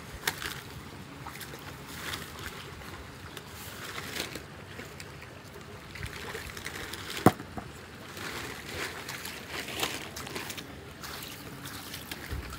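Shallow muddy water running and splashing in a concrete drain as gloved hands pull out clumps of mud, roots and netting, with irregular splashes and one sharp knock about seven seconds in.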